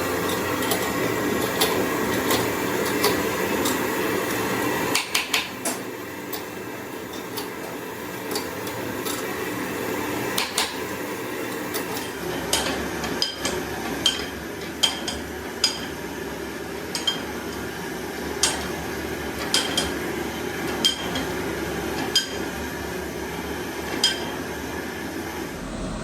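Metal tools tapping and clinking on metal engine parts: sharp, ringing ticks, irregular, coming roughly once a second in the second half, over a steady background hum.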